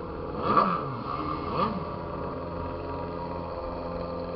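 Motorcycle engine running steadily while riding, with two short rises and falls in revs, about half a second and a second and a half in.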